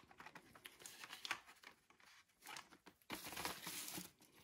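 Faint rustling and crinkling of tissue paper and plastic blister cards being handled and pulled out of a cardboard case, with a few light clicks; the rustling is a little louder about three seconds in.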